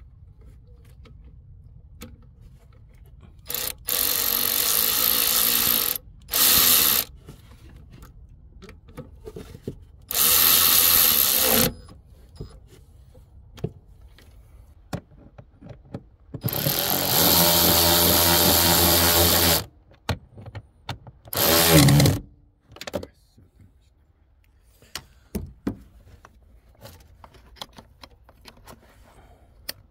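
Handheld electric power tool running in five short bursts of about half a second to three seconds each, its motor pitch shifting in the last one, with small clicks and knocks of tool work between.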